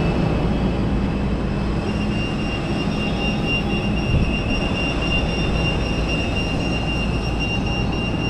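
Steady airport apron noise from jet aircraft turbines running nearby: a constant rumble with a thin, high steady whine that comes in about two seconds in.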